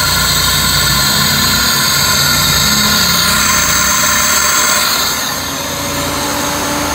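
Peugeot 406 engine idling with its electric radiator cooling fan running on low speed: a steady mechanical whir and hum that dips slightly about five seconds in.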